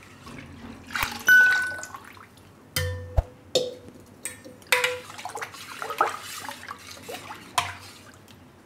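Buttermilk poured and splashing into a steel bowl of gram-flour batter, then stirred with a metal utensil that sloshes the liquid and clinks irregularly against the bowl's sides. A loud, short ding sounds about a second in.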